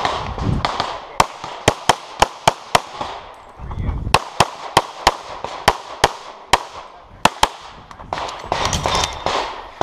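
Semi-automatic pistol fired rapidly in quick strings of shots, roughly three or four a second, about sixteen in all in three strings, with short gaps between. Near the end the shots stop for a stretch of rushing noise as the shooter moves.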